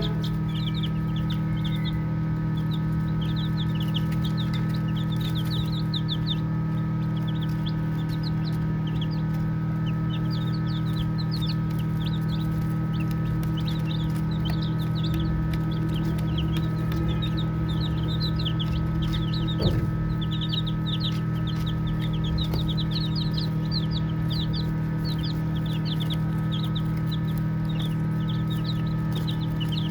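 A group of baby chicks peeping continuously: many short, high chirps overlapping, over a steady low hum. There is a single brief click about twenty seconds in.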